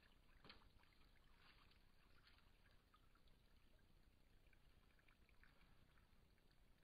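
Near silence with faint, irregular small splashes and lapping of water, a little livelier in the first couple of seconds, from a wild animal drinking at the water's edge.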